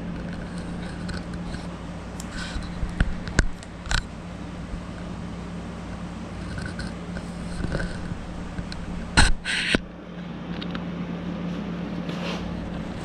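Electrical tape being handled and pulled off the roll onto a rifle stock: a few sharp clicks and scrapes, then a short, loud tearing rasp in two parts about nine seconds in. A steady low hum runs underneath.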